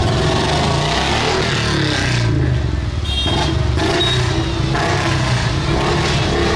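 Many motorcycle engines running together, a steady engine drone with a short dip about three seconds in.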